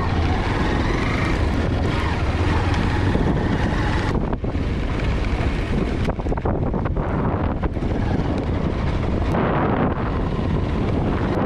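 Wind buffeting the camera microphone over a steady low rumble.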